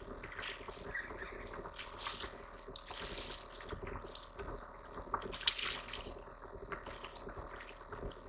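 A hooked peacock bass splashing and thrashing at the water's surface by the bank as it is reeled in, in irregular splashes, the loudest about five and a half seconds in.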